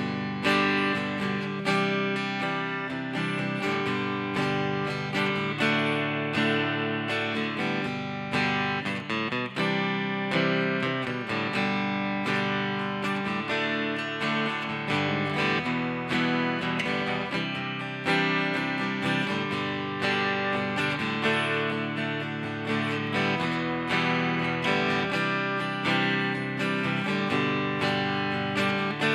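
Fender Santa Rosa acoustic guitar with 10-gauge strings, amplified through a Marshall solid-state combo amp. It plays a continuous run of strummed and picked chords.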